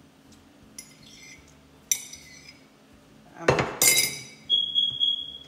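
Glassware and dishes clinking on a kitchen counter while tea is poured into a glass tumbler: a few light clinks about two seconds in, then a louder clatter of clinks, followed by a brief high ringing tone near the end.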